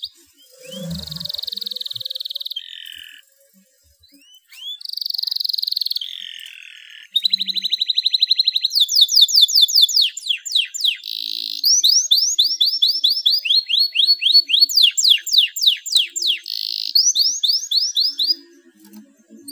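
A male domestic canary in breeding condition singing: buzzy held trills and rapid runs of repeated down-slurred notes. It sings in short phrases with brief pauses for the first several seconds, then goes into a long, nearly unbroken song.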